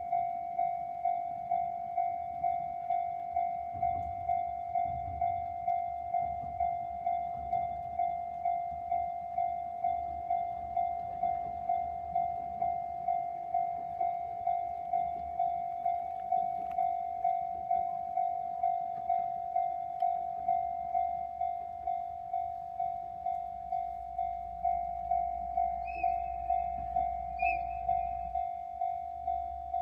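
Japanese level-crossing alarm ringing: a single electronic bell tone repeating steadily, a little under twice a second. In the last several seconds the low rumble of an approaching train builds beneath it.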